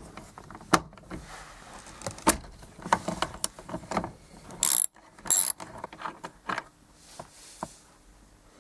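Ratchet wrench clicking in irregular runs as a T50 Torx bolt is undone, with two short, high rasping bursts about halfway through.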